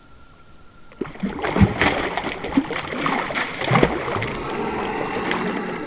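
Released largemouth bass thrashing and splashing at the surface right beside a boat as it swims off. The burst of splashes starts about a second in, with the two hardest slaps around the middle, and fades near the end.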